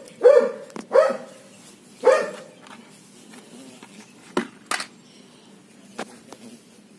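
A dog barks three times in the first two seconds, then a few sharp clicks follow.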